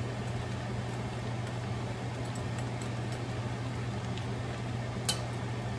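Steady low mechanical hum under a pan of buttered garlic prawns simmering as it is stirred with a metal spoon. A sharp clink of the spoon on the stainless steel pan comes about five seconds in.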